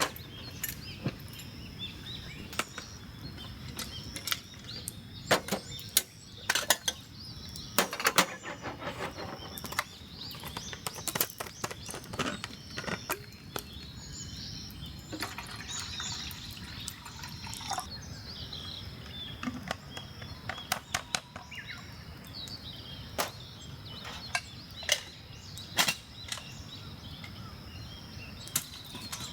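Wood campfire crackling: irregular sharp pops and snaps, a few much louder than the rest, over a steady low hiss.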